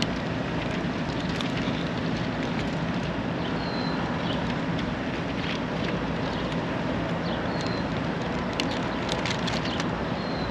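Steady outdoor rumble with a low hum running under it. A few light clicks come near the end, from scissors snipping flex tape.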